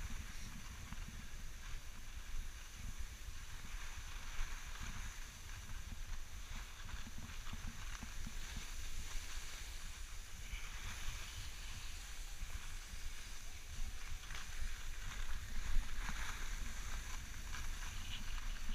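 Skis sliding and scraping over groomed snow during a downhill run, a steady hiss that swells in places, with wind rumbling on the microphone.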